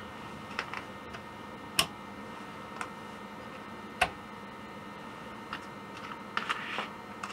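Scattered sharp clicks and taps of the control knobs being pulled off the front panel of a Rupert Neve Portico 5042 and handled. Two louder clicks come about two and four seconds in, and a quick run of small ones near the end.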